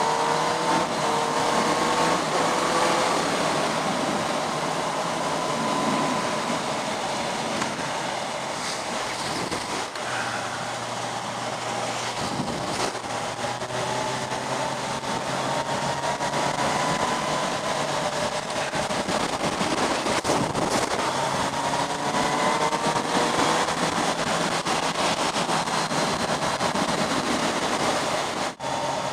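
Kawasaki motorcycle engine being run in, pulling at moderate revs: its pitch rises near the start and twice more later, holding steady in between. Heavy wind rush and tyre hiss on a wet road run under it.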